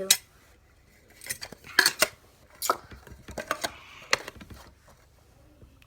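Eight or so sharp clicks and clinks, spaced irregularly, as a gear fidget spinner and its case are handled.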